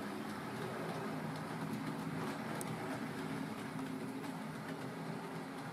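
Hornby OO gauge model train, a Lord Nelson class locomotive hauling goods wagons, running along the track with a steady electric-motor hum and wheel noise. A single sharp click comes about two and a half seconds in.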